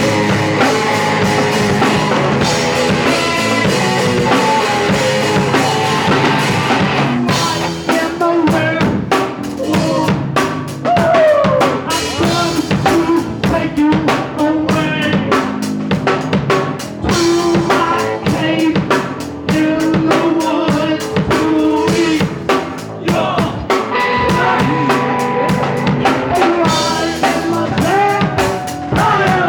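Punk rock band playing live, with the drum kit prominent: snare, bass drum and rimshots.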